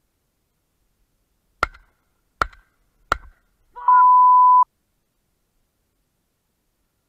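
Three shotgun shots in quick succession, about three-quarters of a second apart, fired at a flushing hen pheasant. A moment later a short spoken word is covered by a loud steady electronic beep lasting under a second, a censor bleep and the loudest sound here.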